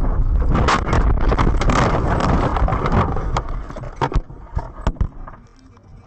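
A car crashing off the road into deep snow and tumbling, heard from inside the cabin: a long, loud, dense rush of crunching and scraping, then several sharp bangs about three to five seconds in as it comes to rest.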